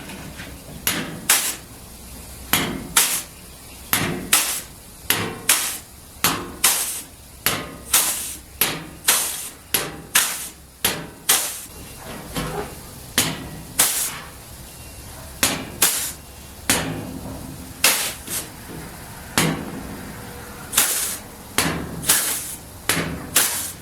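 Flange tool crimping an offset step into the edge of an 18-gauge sheet-steel floor panel: a sharp metallic clack with each squeeze, about two a second, some in quick pairs.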